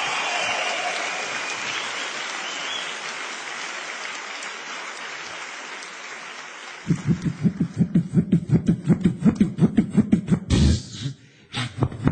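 Audience applause and cheering fading away. About seven seconds in, a beatboxer starts a fast rhythm of deep bass pulses and sharp clicks, all made with the mouth into a handheld microphone and amplified through the hall's sound system. The rhythm breaks off briefly near the end and picks up again.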